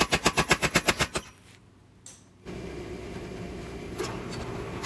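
Mechanical power hammer pounding a hot Damascus steel billet with rapid, evenly spaced blows, breaking the stock down thinner and wider. The blows stop about a second in, and after a short lull a steady machine hum runs on.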